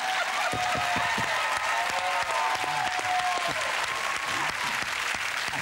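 Studio audience applauding, with some voices cheering over the clapping.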